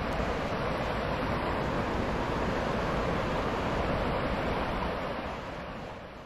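Steady wash of sea surf with wind, fading out near the end.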